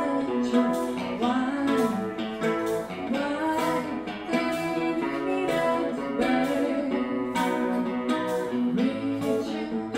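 Live music: a strummed guitar with a sung melody over it.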